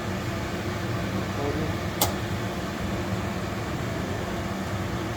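Broan range hood blower fan running with a steady hum, switched on by the newly replaced switch. One sharp click about two seconds in.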